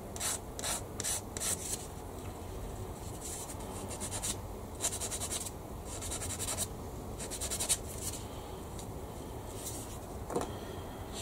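Short rasping strokes of an abrasive rubbed over a small plastic model-kit part, quick and several a second at first, then longer, slower strokes.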